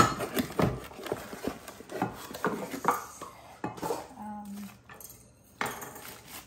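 Clinks and knocks of a stainless steel KitchenAid pasta cutter attachment being handled and set on a granite countertop.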